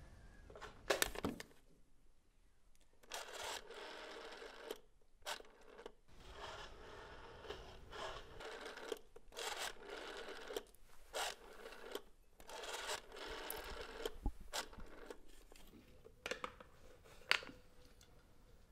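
Rotary-dial telephone: the handset is lifted with a clatter, then the finger dial is wound round and whirs back, one digit after another, as a number is dialled. A few clicks come near the end as the receiver is raised to the ear.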